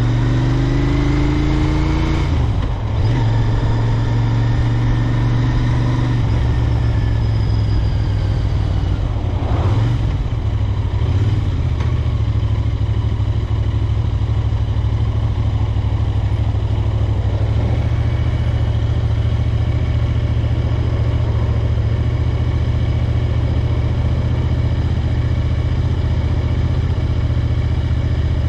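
Royal Enfield Interceptor 650's parallel-twin engine rising in revs under acceleration, with a brief dip about three seconds in as it changes gear. It then runs at a steady speed.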